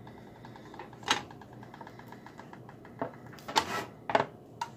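Tongs knocking and scraping against a waffle maker's plates and lifting out cooked waffles: a few short clatters, the loudest about a second in and again past the middle, over a faint, fast, even ticking.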